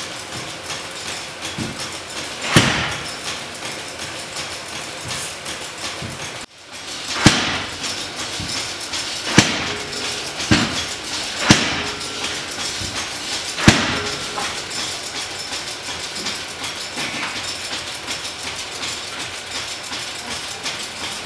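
Hammer blows on metal at the anvil: six single sharp strikes at irregular spacing, the loudest about 14 seconds in. Under them runs the steady rush of the forge's air blast.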